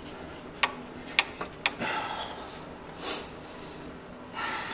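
A 3/8 ratchet being worked free of the belt tensioner: several sharp metallic clicks and knocks in the first two seconds, with a few breaths.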